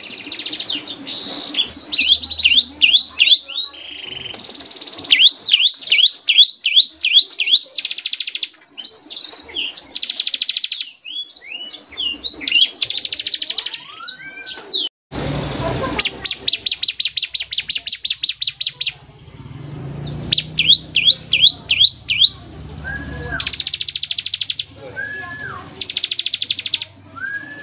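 Bar-winged prinia (ciblek) singing its full 'ngebren' song: long, very fast rattling trills alternating with runs of quick downslurred notes, high-pitched, with a brief break about halfway.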